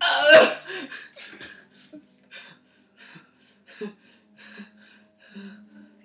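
A man's loud hiccup right at the start, with a short voiced squeak after it like a little bleat, followed by soft, short breathy chuckles of stifled laughter.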